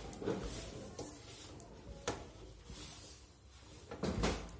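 Hand rubbing and pressing ghee-coated maida flour in a steel plate: soft scraping and rustling, with a few knocks against the metal, the loudest near the end.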